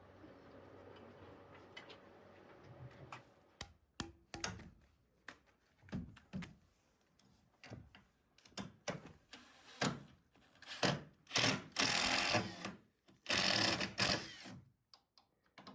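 Electric drill running in many short stop-start bursts, with longer, louder runs in the second half.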